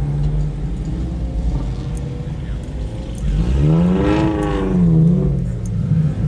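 A car engine revving: one quick rise and fall in pitch about three and a half seconds in, then a smaller blip about a second later, over a steady low rumble of idling engines.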